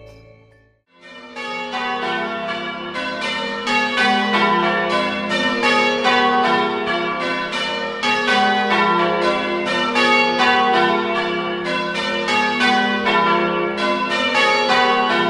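Church bells in change ringing, starting about a second in: an even run of bell strokes at several a second, each ringing on into the next.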